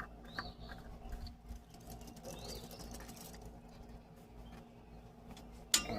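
Faint scratching and rubbing as a new spin-on oil filter is turned onto its mount by hand, with a few faint high chirps and a sharp click near the end.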